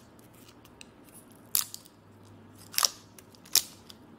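Washi tape being handled and peeled: three short crackly rips, about a second apart, the second the longest.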